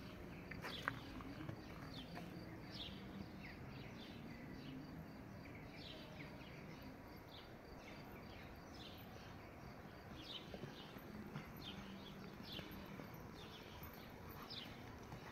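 Small birds chirping repeatedly, short high falling calls about once a second, over a low steady outdoor background. The soft hoofbeats of a horse trotting on arena sand are faint.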